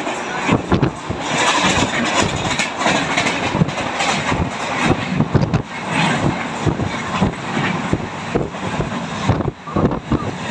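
Coimbatore–Chennai Central Intercity train passing close alongside at speed, heard through the open barred window of a moving train: a loud rushing rumble with rapid, irregular clattering of wheels over the rails.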